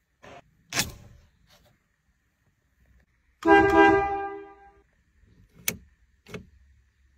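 A car's vent-window latch clicks, then the car's horn sounds one steady honk lasting about a second and a half, followed by two sharp clicks as a dashboard knob is pulled.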